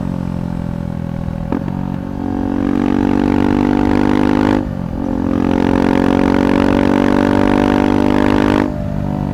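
KTM 390 Adventure Rally's single-cylinder engine through a Red Rooster aftermarket exhaust, under way with a steady engine note. The note drops off briefly about halfway through and again near the end before pulling on.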